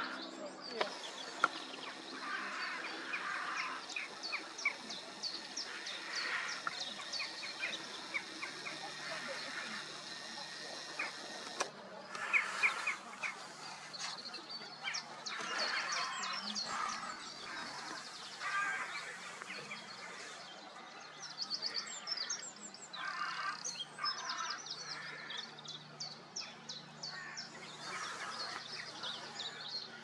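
Wild birds singing and calling in a chorus, with rapid high chirps and trills going on throughout, over a faint steady low hum.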